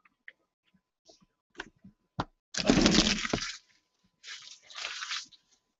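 A few light knocks, then crackling and crinkling of cellophane shrink-wrap as sealed trading-card hobby boxes are picked up and handled, loudest about two and a half seconds in.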